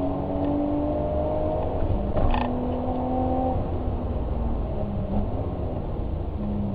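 A vehicle engine running, a steady droning hum whose pitch drifts slowly over a low rumble, with a brief sharp clunk about two seconds in.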